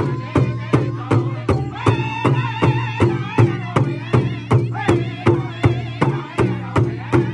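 Powwow drum group singing in high voices over a large shared bass drum struck together in a steady beat, just under three strikes a second.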